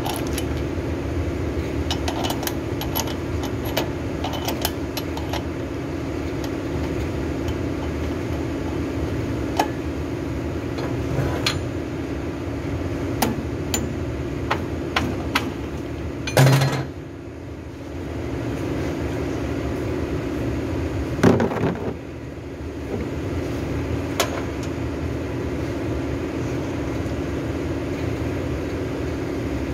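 Brake lathe running steadily while a brake rotor is refaced, a steady hum with scattered light clicks and ticks. Two louder knocks come about 16 and 21 seconds in, each followed by a moment when the hum drops a little.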